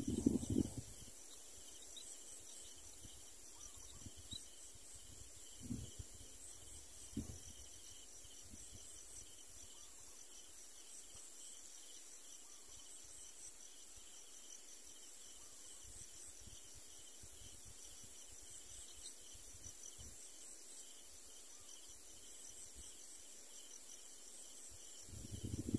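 Faint, steady insect chorus: a high pulsing trill that runs on without a break, with a few soft low thumps at the start and about six and seven seconds in.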